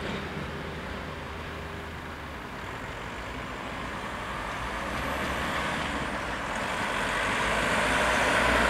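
Road vehicles (cars and a van) approaching and driving over the level crossing, their tyre and engine noise growing steadily louder over the last few seconds.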